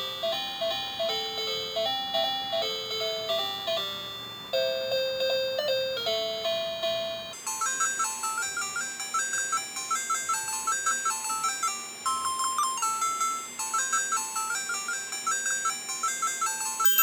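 Instrumental background music with a bouncing melody of short repeated notes; about seven seconds in, the melody moves up to a higher, quicker line.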